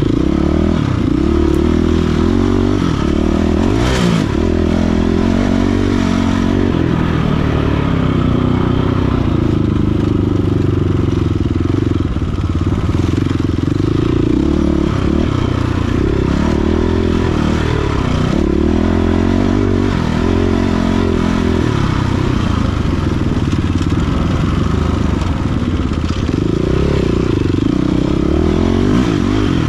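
KTM dirt bike engine being ridden hard off-road, its pitch rising and falling continually with throttle and gear changes. A sharp knock comes about four seconds in.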